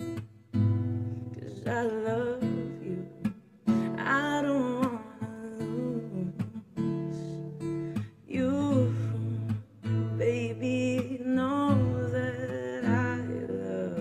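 Acoustic guitar strummed while a voice sings a melody over it in several phrases, as in a live, stripped-down song performance.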